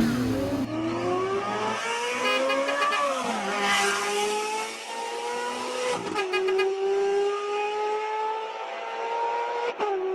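A vehicle engine sound effect revving: a pitched engine hum that climbs for about three seconds, drops back, then runs fairly steady with slow small rises, briefly breaking off twice.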